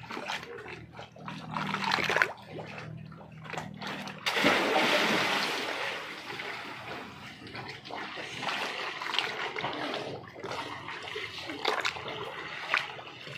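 Small sea waves splashing and washing against a concrete wall, in uneven surges, the largest about four seconds in.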